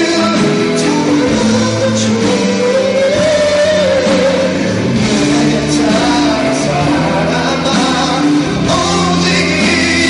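A male singer's live vocal into a handheld microphone over band accompaniment, steady and loud, with a long held note about three to four seconds in.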